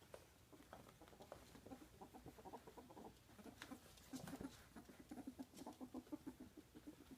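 A ferret dooking: soft, rapid clucking in quick runs, the sound of a happy, playful ferret, growing louder about four seconds in.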